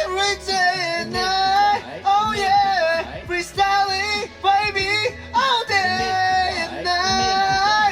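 A pop vocal singing a melodic line in short phrases over a backing track with a steady low beat.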